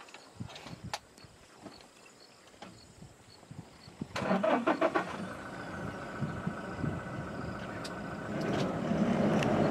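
Game-drive vehicle's engine cranking and catching about four seconds in, then running steadily, a little louder near the end. A few faint clicks before it starts.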